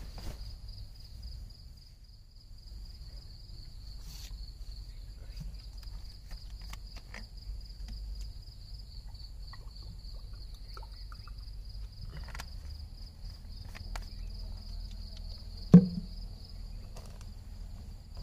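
Insects trilling steadily in one high, finely pulsed tone over a low outdoor rumble. Scattered small clicks and knocks, and one sharp loud knock about 16 seconds in.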